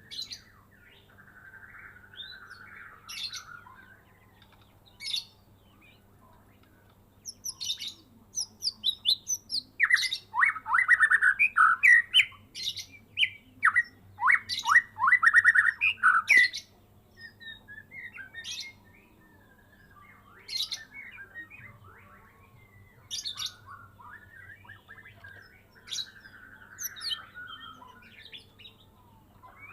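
White-rumped shama of the Medan type singing in bursts. Short scattered whistles and chirps are broken about a third of the way in by a long, loud run of rapid repeated harsh sweeping notes, before it goes back to short phrases.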